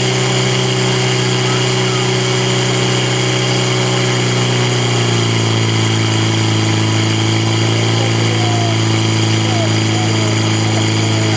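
Portable fire pump's engine running steadily under load, feeding water into the hose lines; its pitch drops slightly about five seconds in.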